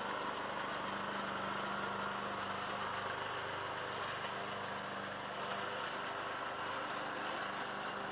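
Old Craftsman riding lawn mower's engine running steadily as the mower drives across the lawn.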